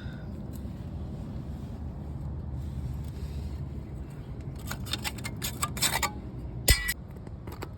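Light metallic clicks and clinks of hand tools and brake parts being handled, then a single sharp metal clang with a short ring near the end, over a steady low background rumble.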